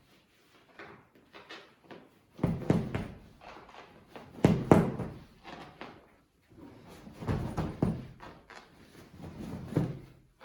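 Dull thumps and fabric rustling as a large cushion is shoved and worked into a tight-fitting new cover, in a few uneven bouts with pauses between.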